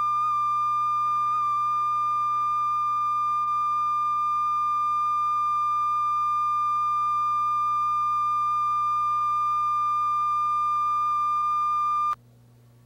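Steady line-up test tone accompanying colour bars at the head of a videotape: one held pitch at constant level, the reference for setting audio levels. It cuts off suddenly about a second before the end, leaving a faint low hum.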